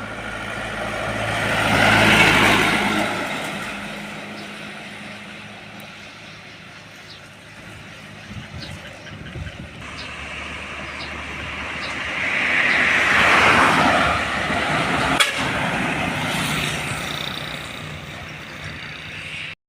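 Heavy trucks passing on a road: engine drone and tyre noise swell and fade twice, peaking about two seconds in and again about thirteen seconds in. A sharp click about fifteen seconds in.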